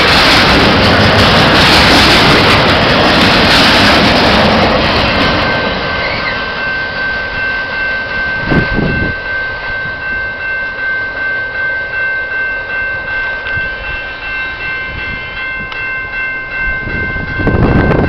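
Double-stack intermodal freight cars rumbling and clattering over the rails, fading out about five seconds in as the last cars go by. The level-crossing warning bell then rings on in steady repeated dings, with a single thump just past the halfway point and a car driving over the crossing near the end.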